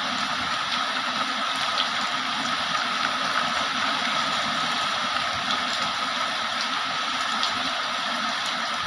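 Heavy rain falling steadily: an even, dense hiss of rain with a few faint drop ticks scattered through it.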